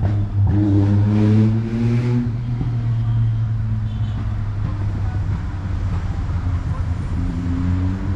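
Motor vehicle engine running with a steady low hum, rising in pitch briefly about a second in and again near the end.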